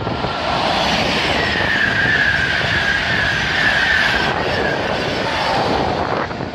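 A train passing at speed: a loud rush of wheel and rail noise with a high whine that slowly falls in pitch, then a lower falling whine before it dies away about six seconds in.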